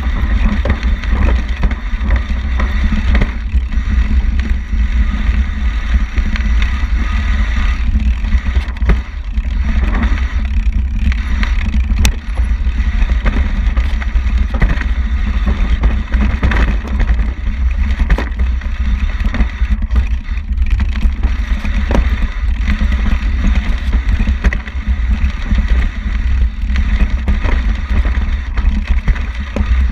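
Wind buffeting the camera microphone as a steady low rumble, with the rattle and frequent small knocks of riding fast over a rough dirt trail.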